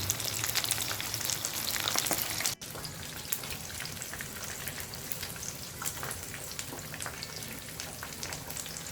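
Food deep-frying in hot oil, a steady sizzle with many small crackling pops. It is louder for the first couple of seconds, breaks off abruptly, then goes on a little quieter.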